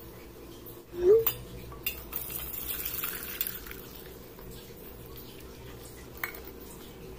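Kitchenware being handled: a loud clink about a second in, then a couple of seconds of clattering and scraping, with a lone click near the end.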